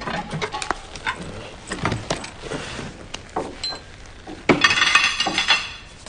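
Kitchenware being handled: scattered clicks and knocks, then a louder clattering rattle of clinking metal or glass about four and a half seconds in that lasts about a second.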